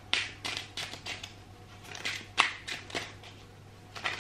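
A deck of cards being shuffled and handled by hand: a run of short, irregular, crisp rustles and slides with a sharper snap about two and a half seconds in, over a faint steady low hum.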